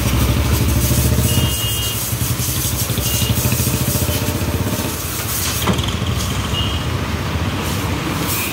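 Pressure washer running steadily with a fast low pulsing beat, under the hiss of the high-pressure water jet spraying the tractor's underside. The low pulsing eases slightly about a second and a half in.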